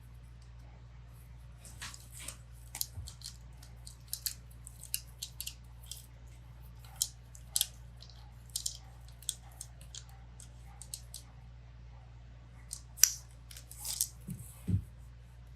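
Irregular small, sharp clicks and snaps of hard parts being handled and fitted on a replica prop, the loudest near the end, followed by a duller knock.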